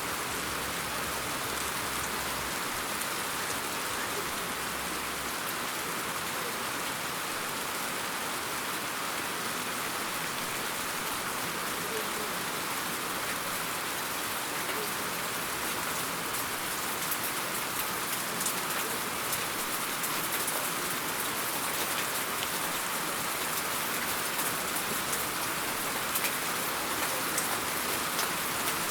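Steady rain falling, an even hiss with many small drop ticks that grow a little busier in the second half.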